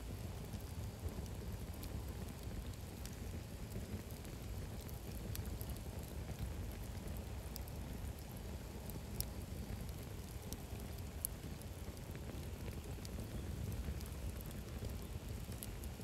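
Wood campfire burning, with sparse small crackles and pops over a steady low rumble.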